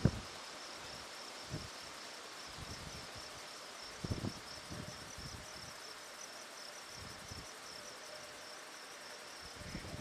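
An insect chirping in a steady, evenly pulsing high trill, with a few brief low thumps, the loudest at the very start and about four seconds in.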